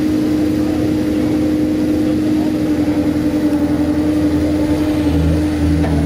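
Komatsu SK820 skid steer's engine running steadily as the machine drives. About five seconds in, a second, lower hum joins in.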